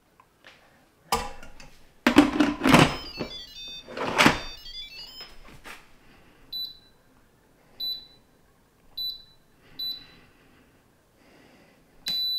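Glass canning jars knocking as they are set into the Instant Pot Max's inner pot and the lid is fitted, with a brief electronic chime among the knocks. Then the cooker's touch panel beeps, five short high beeps about a second apart, as the Canning program and its time are set.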